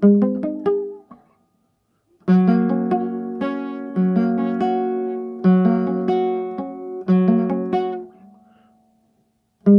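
Nylon-string classical guitar played as single picked notes in a slow melody: a quick run of notes, a pause of about a second, then a phrase of ringing notes that fades away, with picking starting again at the very end.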